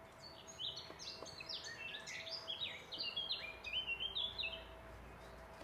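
A songbird singing a fast, jumbled run of short, high, quickly falling notes for about four seconds, then stopping.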